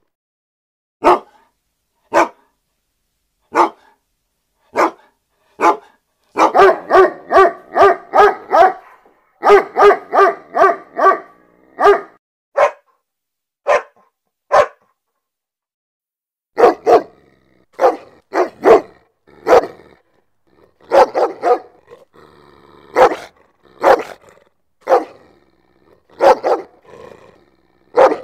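A dog barking: single barks about a second apart, then quick runs of several barks a second, a pause of about two seconds past the middle, then more barks singly and in pairs, with clean silence between them.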